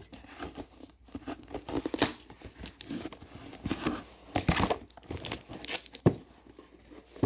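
Sticky tape being peeled off and crumpled by hand, with irregular crinkling and tearing noises, loudest about four and a half seconds in.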